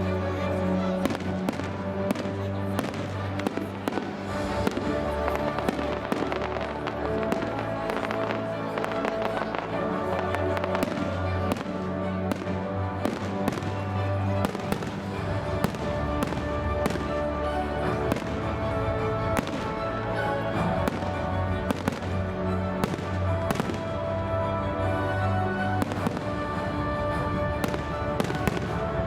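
Fireworks display: a continual run of sharp bangs and crackles from bursting shells, over loud accompanying music with held tones.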